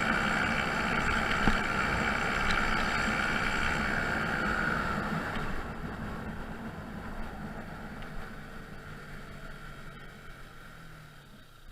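Honda Zoomer's 49cc four-stroke single running at road speed with riding noise, then easing off: the sound fades gradually and the engine note falls as the scooter slows.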